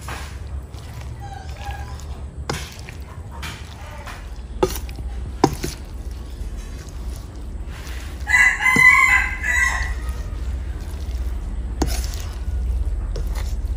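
A metal spoon stirring thick batter in a stainless steel bowl, with scattered clicks and scrapes of metal on metal. A rooster crows once a little past the middle, the loudest sound, lasting about a second and a half.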